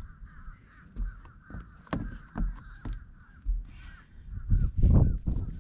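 A steady chorus of bird calls, many short calls overlapping, with a few sharp clicks and knocks as a wire ring crab net and its line are handled on a wooden deck, and a louder low rumble near the end.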